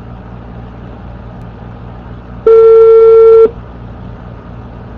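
Telephone ringback tone on an outgoing call: one steady ring lasting about a second, about two and a half seconds in, over faint line hiss. The line keeps ringing unanswered.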